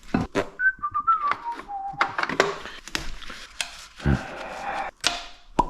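A person whistling a few short notes that step down in pitch, with scattered clicks and knocks of handling around them.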